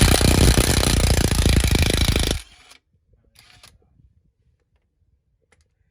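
Cordless DeWalt brushless impact wrench with a 15 mm socket hammering a transmission mount bolt loose, rapid hammering for about two and a half seconds, then it stops abruptly. A few faint clicks follow.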